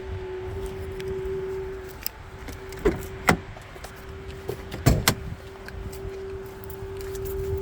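A 2019 Chevrolet Colorado making a steady whine that holds one pitch over a low rumble. Two pairs of sharp clicks or knocks come near the middle.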